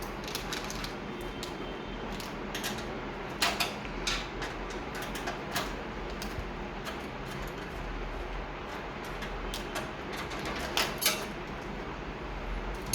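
Scattered light clicks and rattles of small hard computer-case parts and accessories being handled, a few louder knocks among them, over a steady low hum.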